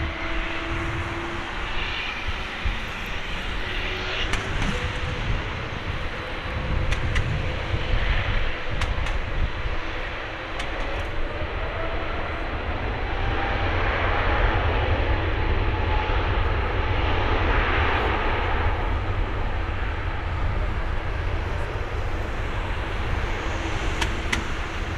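Rolls-Royce Trent XWB turbofans of an Airbus A350-900 running as the airliner lines up on the runway. About halfway through they spool up with a rising whine to a steady, louder roar, the thrust being set for the takeoff roll.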